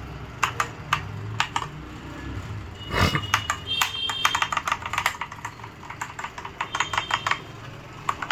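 Ant Esports MK3500 mechanical keyboard keys clicking in irregular quick runs of keystrokes, with a dull thump about three seconds in.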